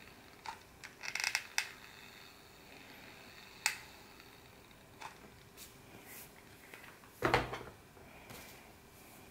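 Ferm hot glue gun in use: scattered small clicks and ticks from its trigger and feed as glue is laid onto felt, with a cluster about a second in. A louder knock about seven seconds in, as the gun is set down.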